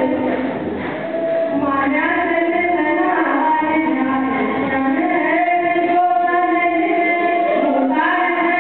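Music: voices singing, women's voices to the fore, in long held notes that glide between pitches.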